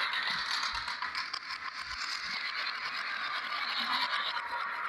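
Many glass marbles rolling down the wavy grooves of a wooden slope, a steady dense clicking and clattering as they knock against each other and the wood and drop into plastic toy truck beds.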